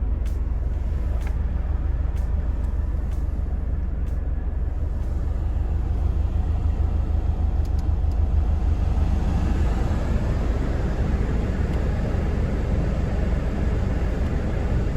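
A car running, heard as a steady low rumble, with a few light clicks in the first four seconds. The noise grows a little fuller and brighter from about eight seconds in.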